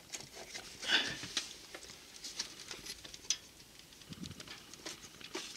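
Scattered light clicks and scraping as a car battery's negative terminal clamp, with its plastic cover and cable, is handled and brought back onto the battery post to reconnect it. The loudest clatter comes about a second in.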